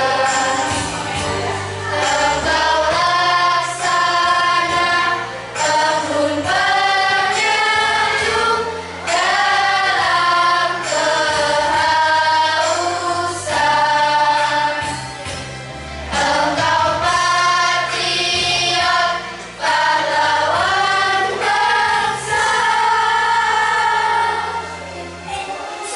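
A children's choir of girls and boys singing a song together in phrases of a few seconds, with short breaths between them.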